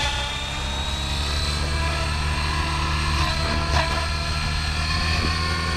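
Oxy5 electric RC helicopter, with an XNova 4025 1120kv motor on a 6S battery, hovering low: a steady rotor-blade beat under a high whine that rises slowly in pitch as the head speed builds.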